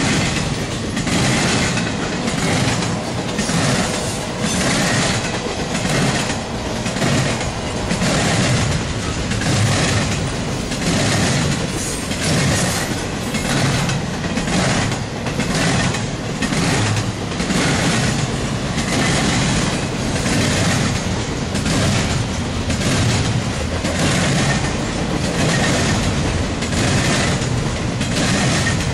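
Intermodal freight train's cars rolling past at speed, the wheels clicking over rail joints in a steady clickety-clack over a pulsing low rumble.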